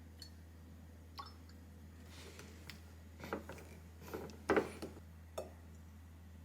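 Faint handling sounds of household items: scattered light clicks and taps with brief rustles, the loudest cluster a little past halfway, over a steady low hum.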